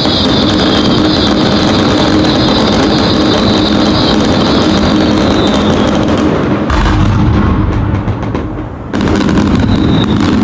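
Dense, continuous barrage of New Year's fireworks and firecrackers going off, loud and crackling, overloading the microphone. About seven seconds in the sound abruptly turns muffled and low for about two seconds, then the crackling barrage returns.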